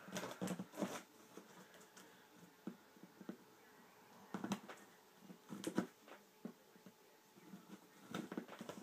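Cardboard shipping box being handled and pried open: scattered short rustles, scrapes and knocks, in a few clusters with quieter stretches between.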